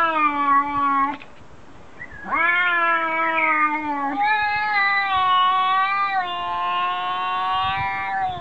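Cat yowling in long, drawn-out calls: one of about a second, then after a short pause a longer call that drops in pitch about four seconds in and is held for several more seconds.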